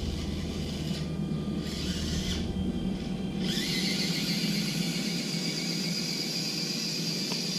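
Electric motor and gearbox of an Imax 24, a 1/24-scale RC crawler, running under load as it climbs a 35-degree ramp. A high steady whine joins about three and a half seconds in.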